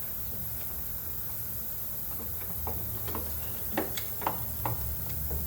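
Light metallic clicks and taps, irregularly spaced and mostly in the second half, as a mower blade is fitted back onto the deck spindle, over a low steady hum.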